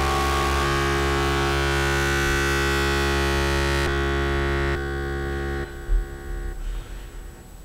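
Soundtrack music: a loud, held, distorted electronic drone chord with many overtones. It steps down in level a little under five seconds in and cuts off abruptly soon after, followed by a brief low thump.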